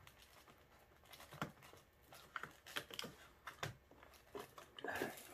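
Faint, irregular clicks, taps and scraping of hard plastic being handled: a snowmobile ignition key switch being turned and worked through the hole in its plastic cowling.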